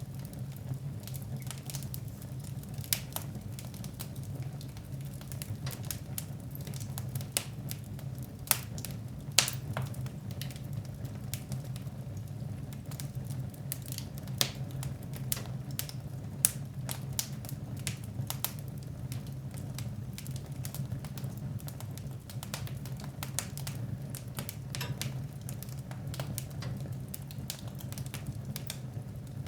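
Wood fire burning in a fireplace: steady irregular crackling with a few louder pops, over a steady low rumble.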